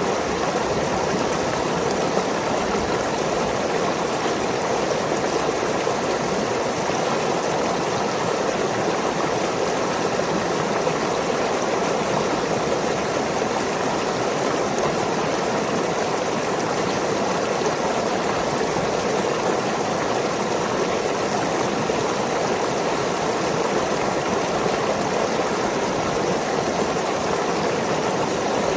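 Small waterfall in a stream: water spilling and rushing in a steady, even flow.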